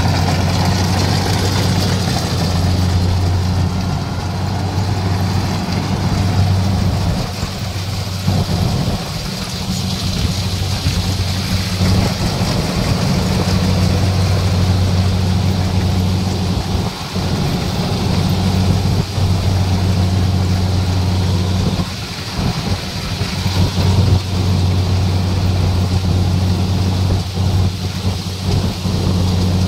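A rice combine harvester's diesel engine running steadily under load as its reel and cutter bar take in lodged, flattened rice, a constant low drone over the clatter and rush of the threshing machinery.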